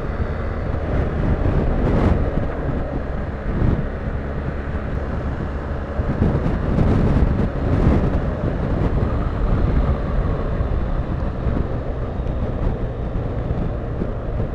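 BMW R1250GS boxer-twin engine running steadily at road speed, under heavy wind rush on the helmet or bike-mounted microphone.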